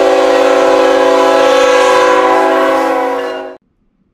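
Locomotive air horn sounding one long, loud chord of several notes that cuts off abruptly about three and a half seconds in.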